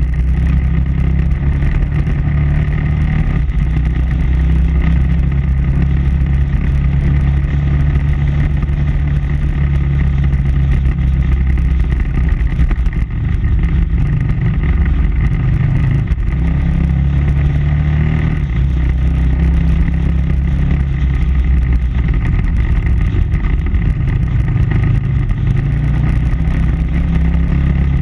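KTM 990 Adventure R's V-twin engine running under way, its note shifting a little with the throttle and dipping briefly about 13 seconds in, over a steady rush of riding noise.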